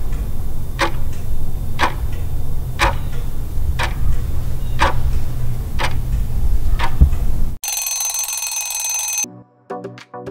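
Countdown-timer sound effect: a clock ticking once a second over a low steady hum. Near the end the ticking gives way to an alarm-clock bell ringing for about a second and a half as the time runs out.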